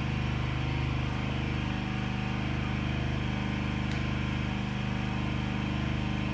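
Steady low machine hum that holds one pitch.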